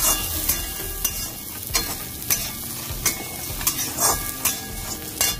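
A metal spatula scraping and knocking against a kadhai (wok) as a dry mix of roasted makhana, peanuts and sev is tossed and stirred, with the mix rattling. The sharp scrapes come irregularly, about one every half second.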